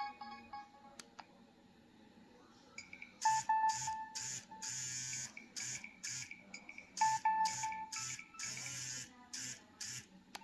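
Preloaded ringtones playing on a Nokia 3120b phone's speaker. The last notes of one tune end about a second in. After a short pause a new polyphonic ringtone starts: sharp percussive hits under short melodic phrases, the phrase repeating about every four seconds, and it stops shortly before the end.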